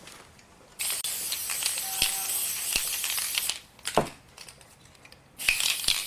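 Water spray hissing onto the mesh of a silk-screen printing screen, in two spells with a pause of about two seconds between them. A single sharp knock falls in the pause.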